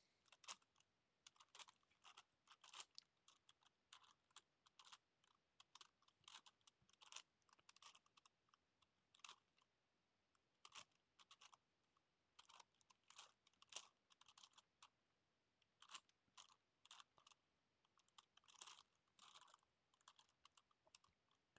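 Faint clicking and crunching of a plastic Gigaminx puzzle's layers being turned by hand, in quick irregular runs of twists with short pauses between them.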